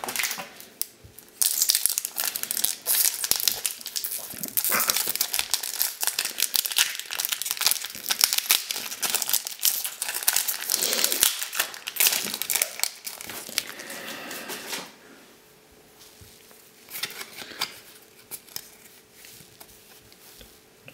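Foil wrapper of a Japanese Pokémon Cold Flare booster pack crinkling and tearing as it is opened by hand, dense and continuous for about thirteen seconds. It then turns much quieter, with only scattered soft rustles of the cards being handled.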